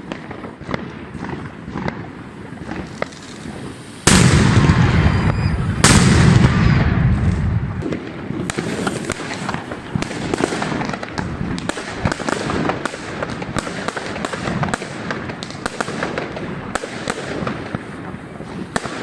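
Ground fireworks going off in the road. Scattered small pops give way to a sudden loud blast about four seconds in and another about two seconds later, then a long run of dense crackling and popping.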